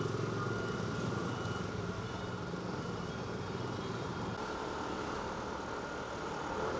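Rusi ADX150 scooter's 150 cc liquid-cooled four-valve engine running steadily while riding slowly in traffic, mixed with road and traffic noise.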